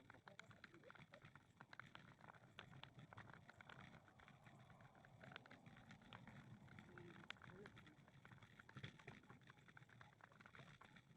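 Quiet walking sounds: faint, irregular footsteps and small clicks on a path, over low outdoor background noise.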